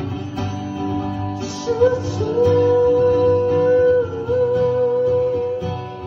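Acoustic guitar strummed in a steady country-folk rhythm. About two seconds in, a long wordless held vocal note comes in over it and is sustained for about three and a half seconds.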